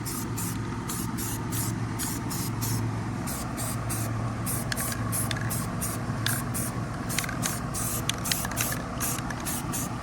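Aerosol spray paint can sprayed in many short hissing bursts, about three or four a second, over a steady low hum.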